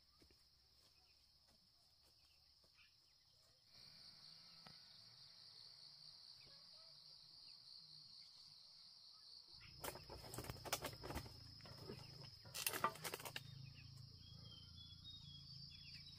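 Insects chirring steadily at a high pitch, a little louder after the first few seconds. From just past halfway, a run of rustles and sharp clicks joins in, as of something being handled or moved through.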